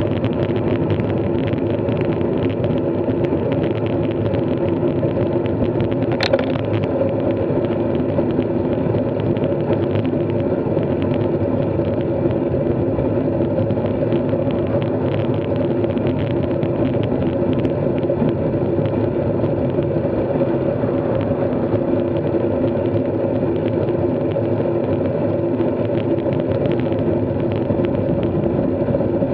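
Steady drone of a bike under way at an even speed, with a few constant tones over a rushing noise. One sharp click comes about six seconds in.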